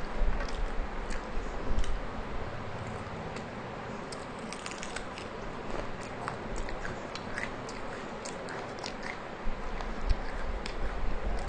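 Close-up chewing and biting, with many small scattered clicks as leftover mutton tikia crumbs picked up by hand are eaten.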